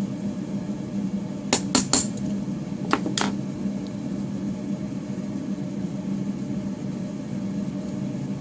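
Small brass clock-movement parts and tools clicking against each other as the movement is put back together: five sharp metallic clicks, in a quick group of three then a pair, over a steady low hum.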